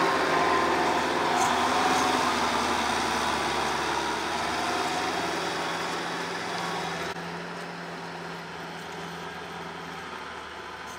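Kubota M6040 tractor's four-cylinder diesel engine running steadily while it drives a rotary tiller through the soil, growing fainter as the tractor moves away. About seven seconds in the sound turns abruptly duller.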